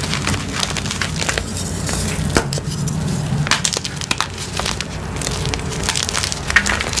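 Colourful glittery gym chalk blocks crushed and crumbled in the hands: a dense, irregular run of dry crunches and sharp crackles, with one louder crack near the end.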